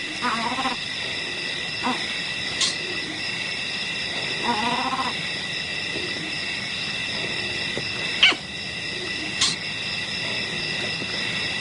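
Two short pitched animal calls, one near the start and one about four and a half seconds in, over a steady high-pitched drone, with a few sharp clicks between them.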